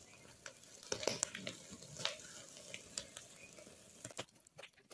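Pork fat burning over hot embers as skewered pork roasts: a soft sizzling hiss with irregular sharp crackles and pops from the fat flaring in the flames.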